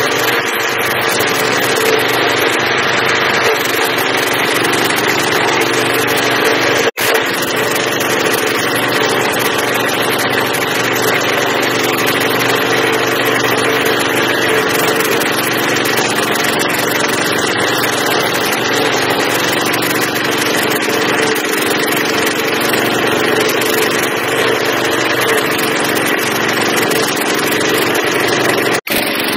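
Walk-behind stump grinder's small single-cylinder petrol engine running steadily at high speed while its 14-inch cutting wheel grinds into a tree stump. The sound cuts out for an instant about seven seconds in and again near the end.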